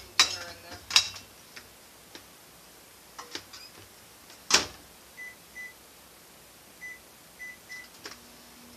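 Over-the-range microwave being set going to melt butter: a few clicks and a sharp clack, then several short, faint keypad beeps, and near the end the microwave's steady low hum starts up as it begins running.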